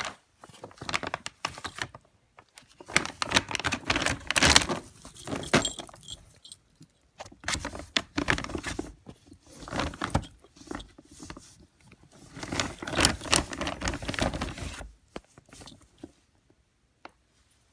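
A ferret digging in a bag of litter pellets: pellets rattling and shifting with the plastic bag crinkling, in repeated bursts of scratchy clatter, settling to a few scattered clicks near the end.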